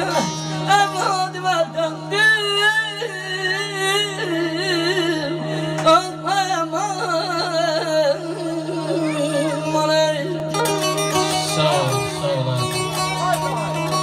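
Live Azerbaijani folk music: a melody full of quick trills and vibrato over a steady low drone.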